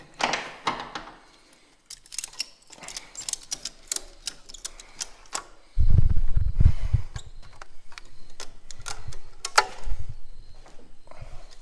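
Metal clicks, taps and rattles of hardware and hand tools being worked while bolting parts on a truck, with a loud low rumble lasting about a second and a half about six seconds in.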